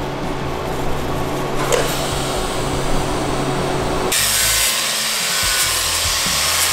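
TIG welding a tack on stainless steel frame tubing: a steady arc hiss with a low hum. About four seconds in it switches abruptly to an angle grinder's disc grinding stainless steel plate, a louder, higher-pitched hiss.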